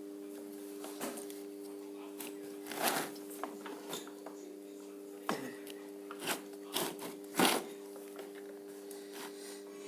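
Scattered handling taps, clicks and rustles, with the loudest tap about seven seconds in, over a steady low hum.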